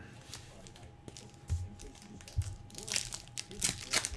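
Foil trading-card pack wrappers being handled and torn open, crinkling, after two soft thumps.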